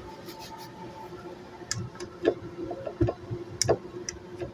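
A few sharp clicks and knocks, starting about halfway in, of a blender jar and its lid being handled, with a faint steady hum underneath.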